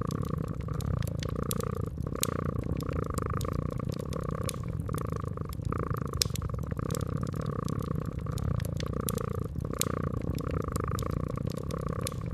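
Domestic cat purring steadily, swelling and easing about once a second with its breathing, over a wood fire crackling with scattered sharp pops.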